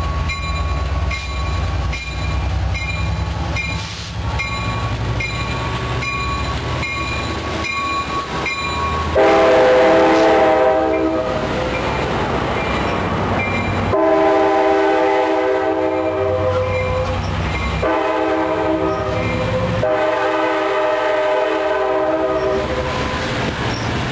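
An Amtrak California F59PHI diesel locomotive passes with a deep engine rumble and its bell ringing about twice a second. From about nine seconds in, its air horn sounds four chord blasts, long, long, short, long, the grade-crossing signal, as the passenger cars roll by.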